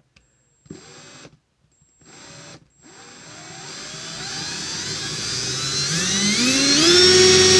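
Milwaukee 18-volt cordless drill run with no load. Two short blips of the motor, then the variable-speed trigger is squeezed in slowly, so the whine rises steadily in pitch and loudness for about five seconds up to full speed before being released.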